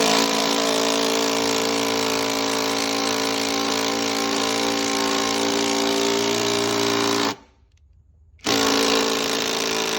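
Brushless cordless drill running steadily at speed for about seven seconds, stopping, then starting again about a second later.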